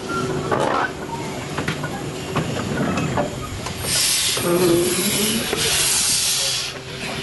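Miniature steam locomotive letting off steam: two loud hisses, each about a second long, about four and five and a half seconds in, among light clicks and knocks.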